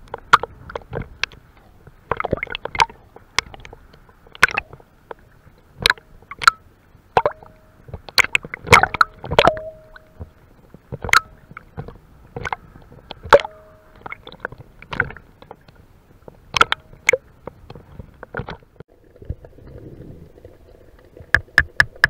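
Small sea waves lapping and slapping at the waterline, irregular sharp splashes with brief gurgles over a faint wash of water.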